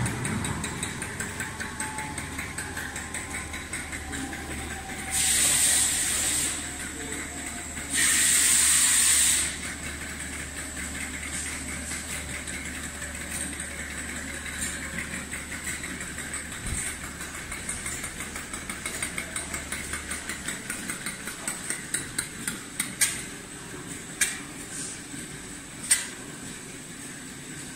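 Class 37 diesel locomotive's English Electric V12 engine shutting down: its low rumble runs on with a faint falling whine, then stops about twenty seconds in. Two loud bursts of hissing air come about five and eight seconds in. Scattered sharp clicks follow near the end.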